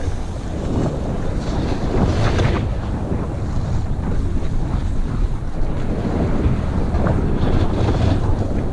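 Wind buffeting a helmet-mounted action camera's microphone while riding fast down a groomed ski run, with the hiss and scrape of edges carving the snow, strongest at about two seconds in and again near the end.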